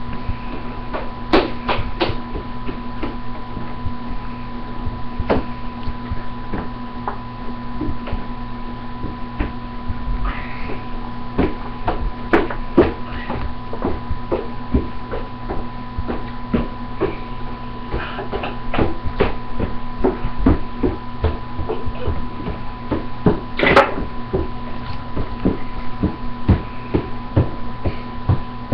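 Toy horse figures tapped along a surface as if walking, making an irregular run of light clicks and knocks, a few of them louder, over a steady hum.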